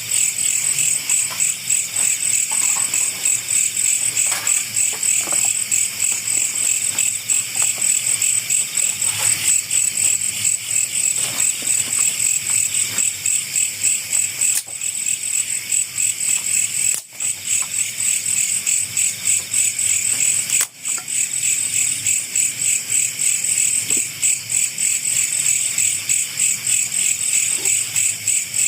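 Dense chorus of night insects, crickets chirping steadily in a fast, even pulse, high-pitched. It cuts out for an instant twice in the second half.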